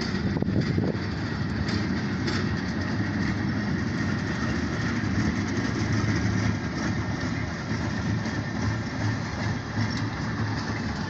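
Oil Creek & Titusville Railroad locomotives running light along the track: a steady engine sound with rail noise, and a few sharp wheel clicks over rail joints in the first couple of seconds.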